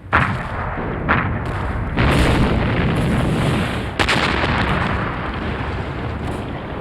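Battlefield artillery fire: four sharp booms, the first three about a second apart and the last about two seconds after, over a continuous heavy rumble of guns and explosions.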